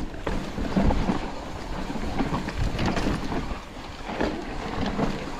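Wind rushing over the microphone of a mountain bike descending a dirt trail, with the bike rattling and knocking over bumps throughout.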